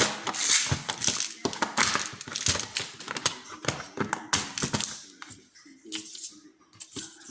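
Euro cylinder lock being handled and taken apart: rapid, irregular small metallic clicks and rattles, thinning out near the end.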